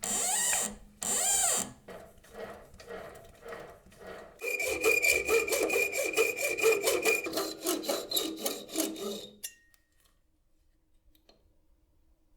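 Back-and-forth hand abrasion strokes, from a file or abrasive shaping the knife's zebrano wood handle. A few softer, slower strokes come first. From about four and a half seconds in there is a louder, quicker run of about four strokes a second, with a ringing tone through part of it, and it stops about nine and a half seconds in.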